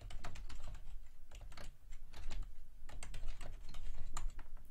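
Typing on a computer keyboard: quick, irregular key clicks, with a brief lull about two seconds in.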